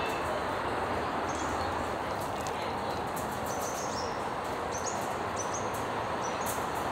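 Steady outdoor background noise with several short, high bird chirps scattered through.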